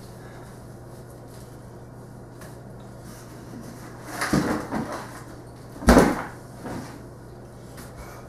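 Hollow knocks and clunks of a white plastic bucket against the wooden floor: a few clattering knocks about four seconds in, then one loud thud about six seconds in as it is dropped down, with a smaller knock after.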